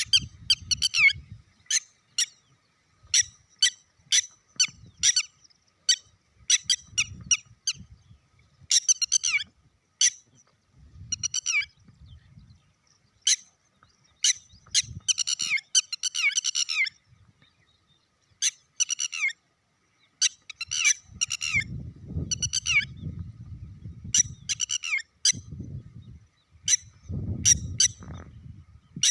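Chick peeping: short, high-pitched calls, many falling in pitch, repeated in irregular clusters. Low rumbling noise comes in twice near the end.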